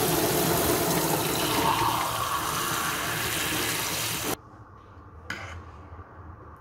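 Kitchen faucet running in spray mode into a small plastic cup, filling it with water; the water is shut off suddenly about four seconds in. A single short knock follows about a second later.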